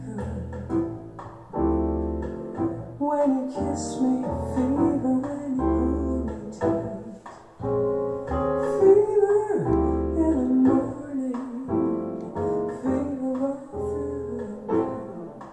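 Piano-led recorded music with strong bass notes, played back through Infinity Reference 20 loudspeakers fitted with a replacement Vifa DT19 tweeter.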